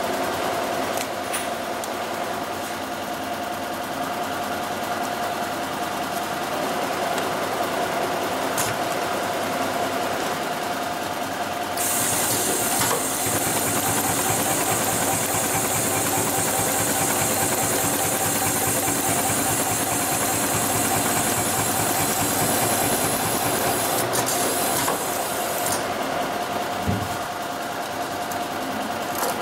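HighTex 728-15 two-needle compound-feed heavy-duty sewing machine running steadily, stitching a seam in heavy tarpaulin fabric: a rapid needle-and-feed clatter over a steady motor whine. A high hiss joins through the middle stretch.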